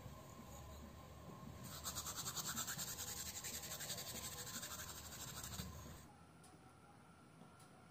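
Seasoning being worked over zucchini halves in a glass baking dish: a rapid, even, scratchy rasping that starts about two seconds in and stops after about four seconds, followed by a few faint ticks.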